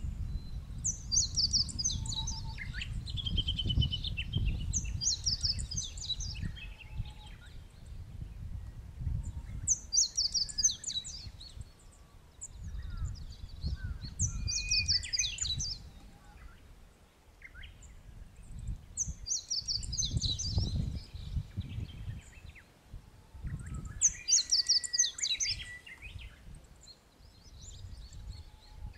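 A songbird sings short, quick phrases of high notes about every four to five seconds, six songs in all. Underneath is a low, gusty rumble of wind on the microphone.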